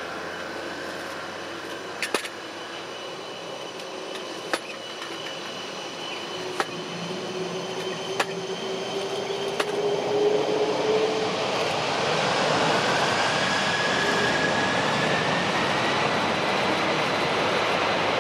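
Four turbofan engines of a Boeing 747-400F spooling up for takeoff: a steady jet noise with whines rising in pitch, getting clearly louder about ten to twelve seconds in as takeoff thrust comes on and the jet starts rolling. A few sharp clicks in the first half.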